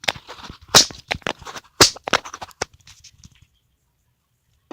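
A quick run of sharp clicks and knocks from handling a dryer power cable and metal parts at the dryer's back panel. They die away about three and a half seconds in.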